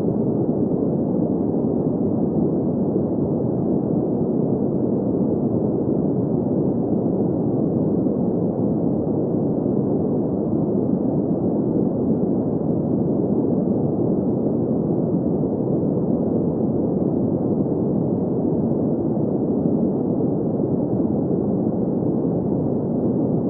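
Steady synthetic green noise for sleep: an even, unchanging rush centred in the low mids, with no high hiss.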